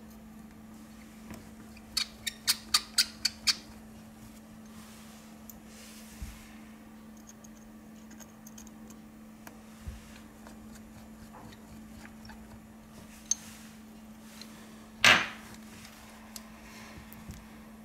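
Small sharp clicks from a precision screwdriver working the bottom screws beside an iPhone 6's charging port: a quick run of about seven clicks a couple of seconds in, then a few faint ticks. One louder knock comes near the end as the phone is handled, over a steady low hum.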